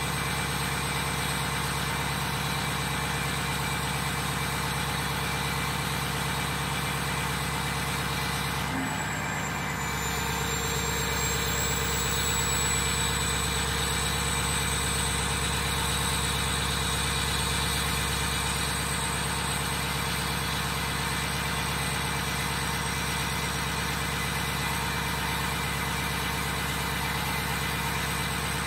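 Ford 6.0 Powerstroke V8 turbo-diesel idling steadily at the tailpipe during its cold-start warm-up, after sitting unplugged for days in freezing weather. The sound dips briefly about nine seconds in, then picks up slightly again.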